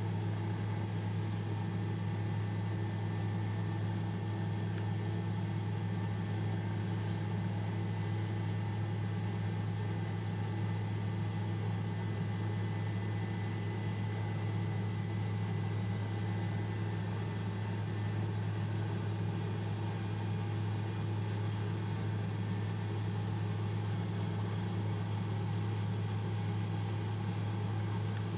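Tour helicopter cabin noise: the engine and rotor drone steadily with a strong low hum and a faint high whine, unchanging throughout.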